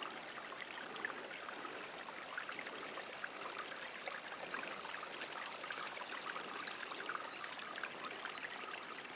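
Small spring-fed mountain brook trickling over stones, a faint, steady water sound. A thin, steady high-pitched whine runs alongside it.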